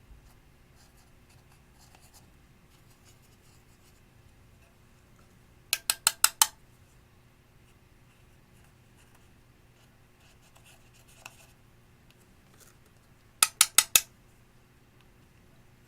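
Glossy slime being worked by hand, giving two quick runs of about five sharp clicks and pops each, one about six seconds in and one near the end, with faint sticky scratching between them.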